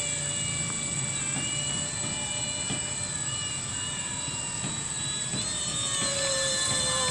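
Electric motor and propeller of a small foam remote-control plane whining in flight, a steady pitched whine that shifts slightly with the throttle and dips a little near the end.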